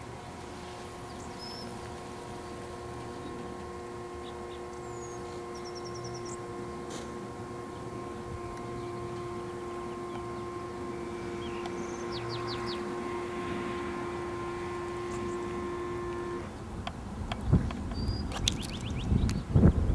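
Electric motor of a Droptail power tailgate assist running with a steady whine as it moves a pickup's tailgate, cutting off abruptly after about sixteen seconds. A few knocks and thumps follow near the end, and birds chirp in the background.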